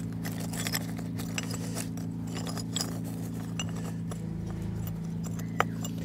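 Small stones clicking and knocking now and then as flagstone pieces and cobbles are shifted and set into place, over a steady low hum.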